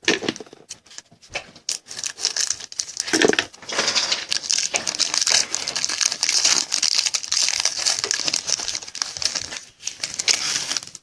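Trading card pack wrapper being crinkled and torn open by hand, a dense crackling that starts sparse and runs steadily from about two seconds in.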